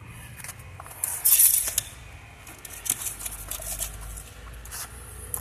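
A steel tape measure being pulled out and handled over a rubber gym floor: irregular scraping and small clicks, with the loudest scrape about a second in.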